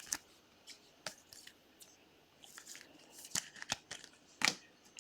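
Faint rustling and light clicks of trading cards being handled and slid through the hand, with scattered taps and a short papery swish about two and a half seconds in.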